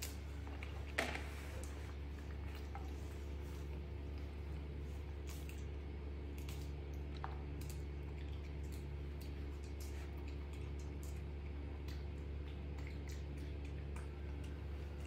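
A young macaque chewing and handling soft fruit: faint wet smacks and clicks over a steady low hum. A short sharp sound about a second in is the loudest.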